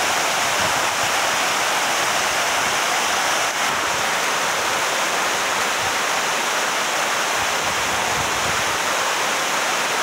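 Small waterfall: water rushing steadily down a sloping rock face, a constant even roar with no breaks.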